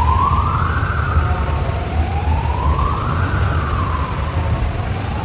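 Siren wailing, its pitch rising and falling slowly in two full sweeps, over a steady low rumble.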